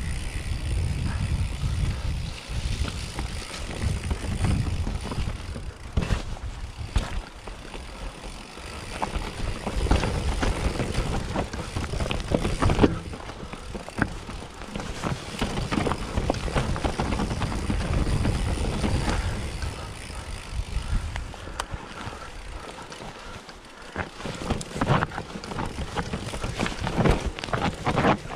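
Commencal Meta mountain bike ridden fast down a rough dirt and rock trail: wind buffeting the microphone over steady tyre and trail rumble, with frequent sharp knocks and rattles from the bike hitting rocks and roots, thickest near the end.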